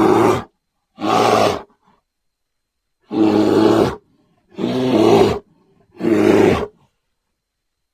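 A bear roaring five times in short bursts, each well under a second, with silent gaps between them.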